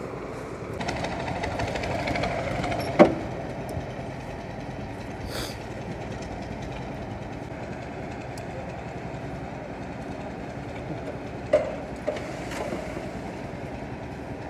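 A concrete mixer-and-loader machine with its skip hoist, running steadily. There is a sharp metal clang about three seconds in and another near the twelfth second.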